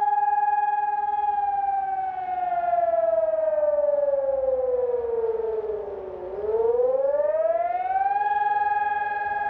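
Civil-defence warning siren sounding the general hazard warning. It holds a steady tone, falls slowly in pitch for about five seconds, then rises again within about two seconds and holds steady once more, which is one tone-and-pause cycle of the on-off warning signal.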